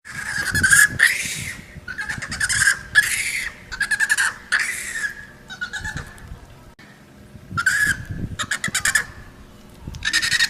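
Monkey calls: a rapid series of loud, harsh screeching calls, some breaking into fast stuttering pulses. A short lull comes about six seconds in, then more calls and a loud burst near the end.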